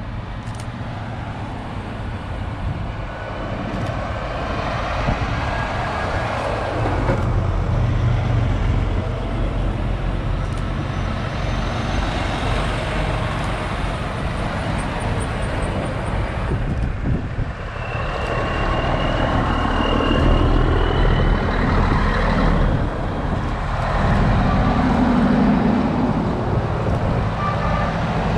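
Convoy of heavy lorries driving past one after another at low speed, diesel engines running and tyres on the road, growing louder as each cab passes close. A thin steady high whine sounds for a few seconds about two thirds of the way through.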